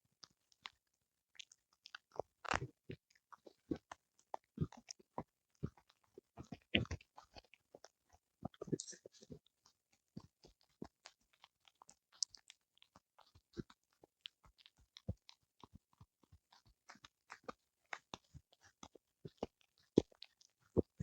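A small mixed-breed dog (Pomeranian–Spitz mix) chewing a whole eel, with an irregular string of wet crunches and bites that grow louder in bursts about two and a half and seven seconds in.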